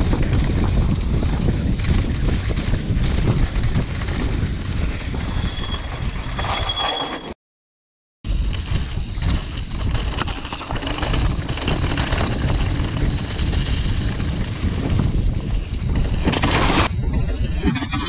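Wind buffeting the microphone over the rolling tyre and trail noise of a mountain bike descending a dirt and leaf-covered forest trail. The sound cuts out completely for about a second a little before the middle, and there is a short sharp hiss near the end.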